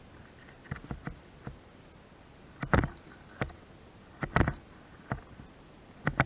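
Irregular knocks and clicks, a dozen or so at uneven spacing, with two louder double knocks in the middle.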